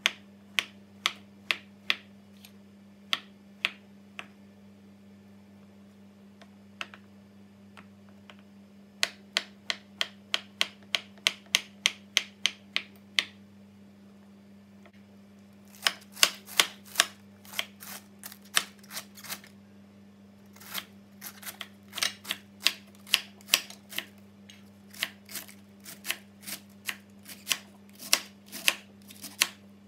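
Stainless-steel kitchen knife slicing vegetables on a cutting board: runs of quick cuts, about three to four a second, each stroke knocking on the board, with short pauses between runs.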